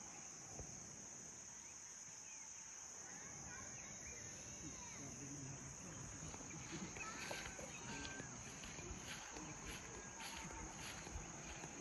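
Steady, high-pitched chorus of insects in the countryside, with birds chirping here and there over it, a little louder in the second half.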